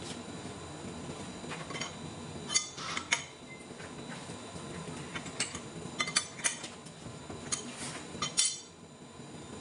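Steel clamps and jaws on a large lathe faceplate being handled, giving irregular sharp metal clinks and knocks over a steady workshop hum.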